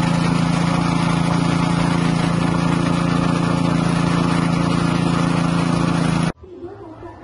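Floating fish-feed pellet extruder machine running steadily and loudly, with a constant low hum. It cuts off suddenly about six seconds in.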